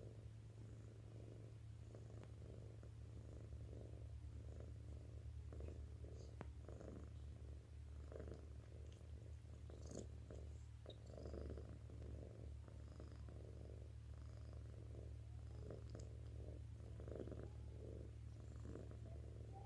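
Domestic cat purring steadily: a low, faint purr that pulses in a slow, even rhythm.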